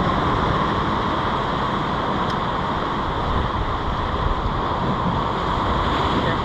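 Steady, loud rushing noise of wind and ocean surf on an exposed rock ledge by the sea, with a faint tick a little over two seconds in.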